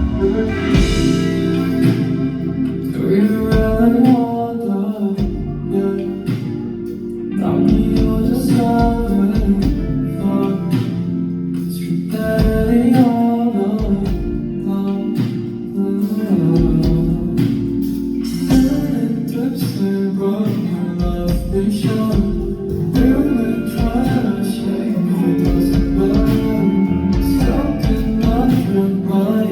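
A song performed live over a concert PA: a male voice sings over guitar-led backing music.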